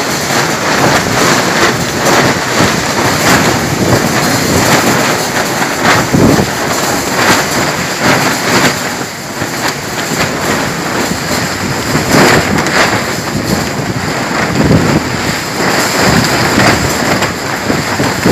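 Thunderstorm with heavy rain and strong wind gusts thrashing the trees: a loud, continuous roar that surges and eases every few seconds.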